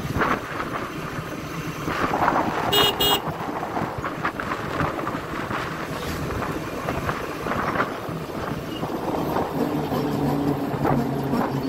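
Motorcycle riding at speed with steady wind and road rush. A vehicle horn gives a short double beep about three seconds in. A deeper engine note comes in near the end as the bike draws alongside the tanker lorry.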